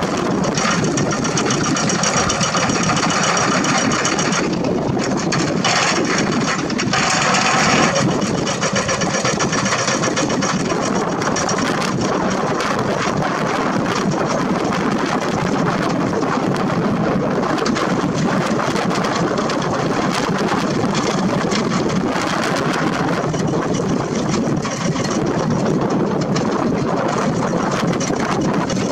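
Hydraulic crawler excavator's diesel engine running steadily as it works, digging rock and dirt.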